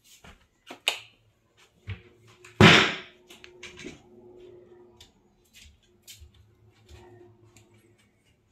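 Scattered light clicks and knocks, with one loud clatter near three seconds in and a faint steady hum behind them.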